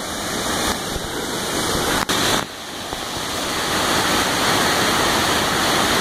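A waterfall's steady rush of falling water. The level jumps abruptly a couple of times, with a brief dropout about two seconds in.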